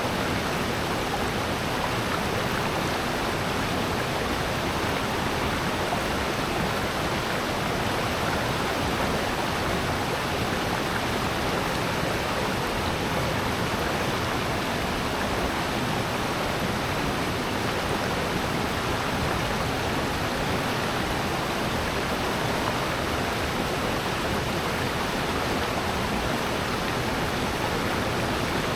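Water rushing steadily down a rocky valley stream, falling over small waterfalls with an even, unbroken roar.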